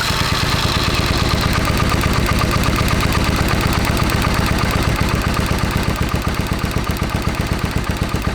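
Suzuki Intruder V-twin engine turning over on the electric starter in a fast, even rhythm, then stopping suddenly near the end. This is a spark test of the rear cylinder's ignition coil, which proves good.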